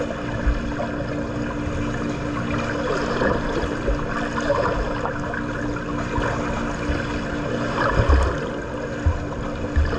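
Swimming pool water splashing and churning, with a few low thumps about eight seconds in, over a steady low hum.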